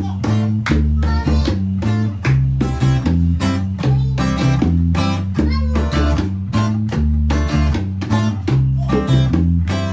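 Band music: guitar strummed in a steady rhythm over a moving bass line, with no singing.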